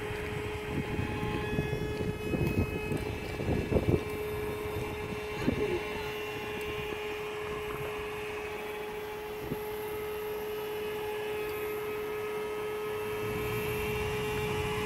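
Brushless electric motor of a HobbyKing FT009 radio-controlled boat whining at a steady pitch as the boat runs across the water, with a few low thumps in the first four seconds.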